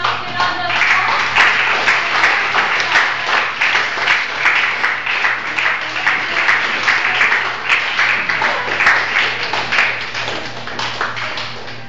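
Audience and cast applauding: dense clapping that eases off a little near the end.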